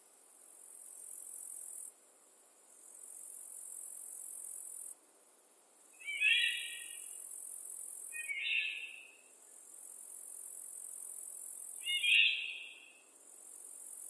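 Forest ambience: a high, thin buzzing trill that breaks off and restarts every two to three seconds, with a songbird singing three short phrases in the second half.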